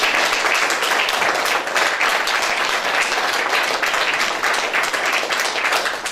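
Applause: many hands clapping steadily.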